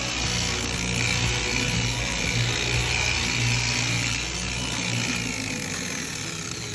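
Handheld electric power tool running steadily, with a low hum under an even, hissing whir. About five seconds in the low hum drops away and the sound fades.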